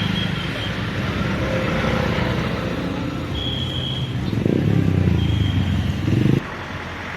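Motor vehicle engine and road noise running steadily, swelling louder about four and a half seconds in, then cut off abruptly near the end.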